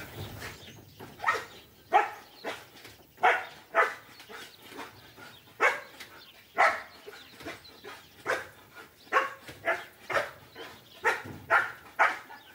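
Belgian Malinois search dog barking repeatedly beside a person crouched in hiding: about fifteen short, sharp barks at irregular spacing, some in quick pairs. The barking is the dog's alert that it has found the hidden person.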